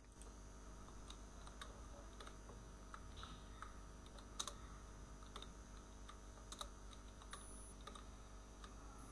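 Scattered single keystrokes on a computer keyboard, faint, over a steady low hum.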